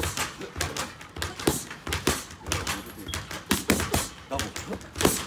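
Boxing gloves smacking into focus mitts in quick combinations: a run of sharp slaps, several a second at uneven spacing.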